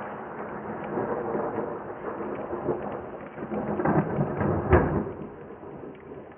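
A thunder rumble that builds over several seconds to a sharp, loud crack about three-quarters of the way through, then fades. Rain hisses underneath, and the whole is muffled by a camera microphone that carries no treble.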